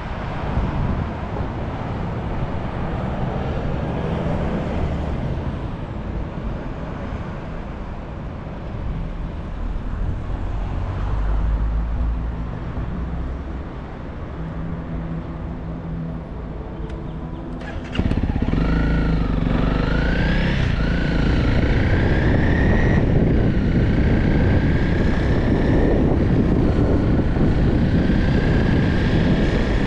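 Motorcycle engine running at low speed, then louder from about two-thirds of the way in, its revs climbing and dropping back several times as it accelerates through the gears.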